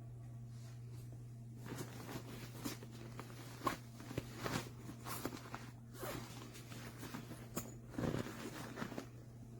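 Irregular clicks, knocks and rustles of objects being handled, starting a little under two seconds in, over a steady low electrical hum.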